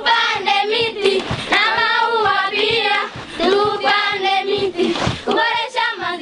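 Singing voices with a steady beat of music.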